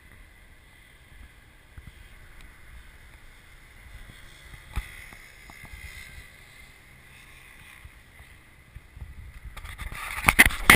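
Faint outdoor wind and ambient noise with a single knock about five seconds in, then rustling and bumping from a hand-held action camera being handled, loudest near the end.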